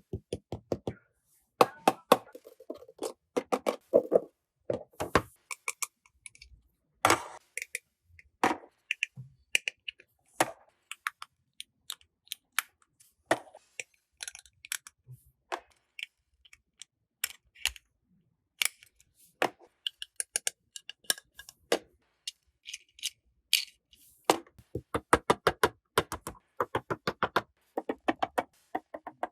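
Close-up handling of a plastic toy set and its packaging: a long string of sharp clicks, taps and crackles, with quick runs of rapid clicks near the start and near the end.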